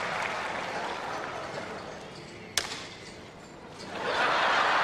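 Audience applause dying away, one sharp smack about two and a half seconds in, then the applause swelling loud again near the end.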